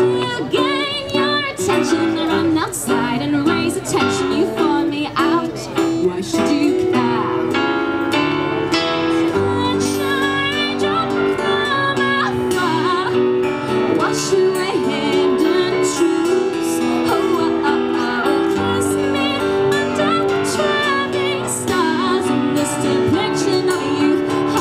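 A woman singing a song live, accompanied by her own playing on a Casio electronic keyboard and by a strummed acoustic guitar.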